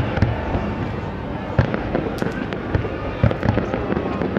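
Aerial fireworks shells bursting: a continuous low rumble of booms, with separate sharp bangs every half second or so and crackling.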